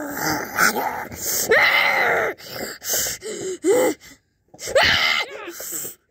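A person's voice making breathy, hissing snarls and short strained cries as sound effects for toy animals fighting, a wolf figure attacking a horse figure. The noises come in separate bursts about a second apart, with a short pause a little after the middle.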